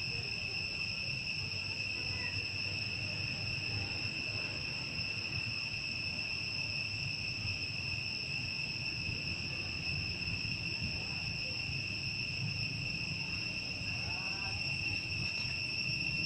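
Insects droning steadily at one high, unchanging pitch, an unbroken chorus.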